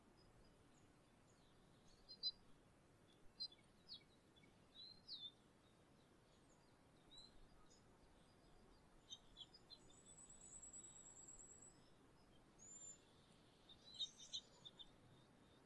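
Faint, scattered chirps of small songbirds over a low steady outdoor hiss. A short, rapid high trill comes about ten seconds in, and a quick cluster of chirps near the end.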